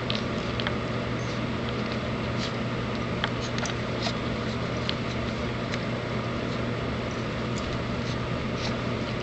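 Steady low hum of a running heater, with a few faint soft clicks scattered through.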